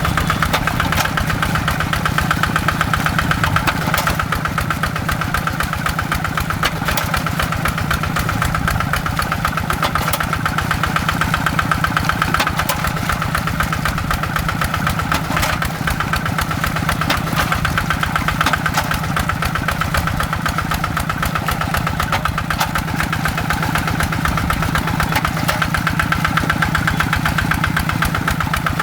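Kubota RD85 DI-2S single-cylinder diesel engine of a hand tractor running steadily, with a fast, even knock of its firing strokes.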